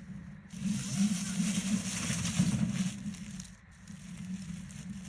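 Dry leaves and twigs crunching and crackling under the wheels of a small self-balancing robot as it drives over them, with a low hum underneath. The crunching is loudest from about half a second in until about three and a half seconds, then eases off.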